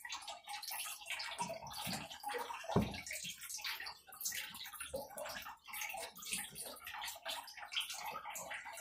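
Foam sponge applicator brushing and dabbing wet white vinyl paint onto a small wooden cutting board: a run of short, wet swishing strokes, with one dull thump about three seconds in.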